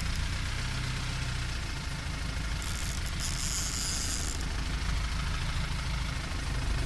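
Fishing boat's engine running steadily at trolling speed, a low rumble under the rush of water along the hull. A spell of high hissing comes in about three seconds in and stops a second and a half later.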